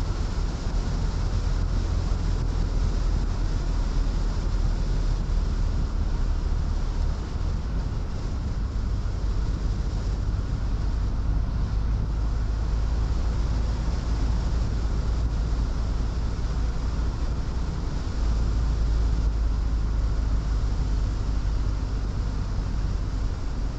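A car driving along a country road: steady road and tyre noise over a deep rumble, with no sudden events.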